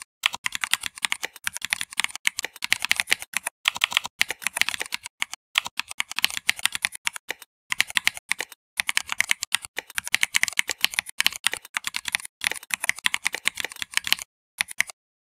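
Fast typing on a computer keyboard: runs of quick key clicks broken by several short pauses.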